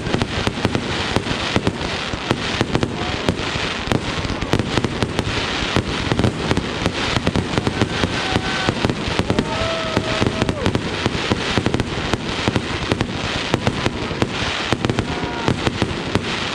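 Fireworks going off in a dense, continuous crackle of rapid pops and bangs.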